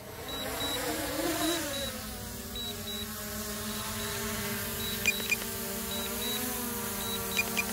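DJI Air 2S drone's motors and propellers humming as it comes down in a forced landing on critically low battery. The hum dips and wavers in pitch in the first two seconds, then holds steady. Short high beeps repeat throughout: the remote controller's critical low battery warning.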